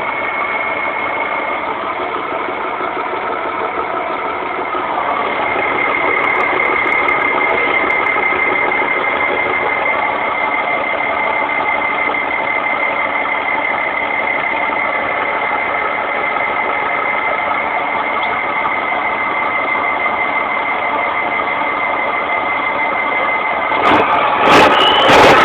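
Mercedes-Benz 1418 truck's diesel engine running steadily, with a thin high whine over it. It picks up to a higher steady speed about five seconds in and holds there. A brief burst of noise comes near the end.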